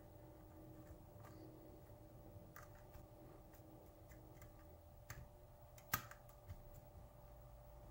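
Faint, sparse clicks and ticks of a steel hook pick working the pin stacks inside a brass pin-tumbler lock cylinder under tension, with one sharper click about six seconds in.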